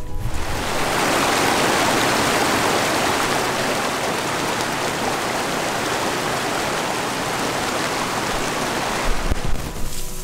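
Shallow mountain stream rushing and splashing over rocks in a steady, even rush, which cuts off near the end.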